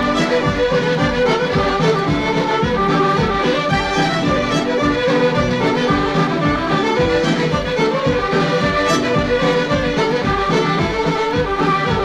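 Irish céilí band playing a lively medley of traditional dance tunes, fiddles and accordion carrying the melody together over a steady beat.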